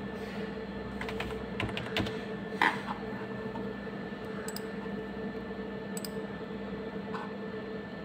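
Computer keyboard keys pressed a few times as a password is typed in and entered: scattered single clicks, the loudest about two and a half seconds in. A steady electrical hum runs underneath.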